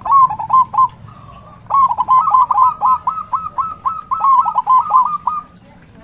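Zebra dove singing its rapid, staccato cooing song: a short phrase at the start, then a longer run of about five notes a second lasting nearly four seconds.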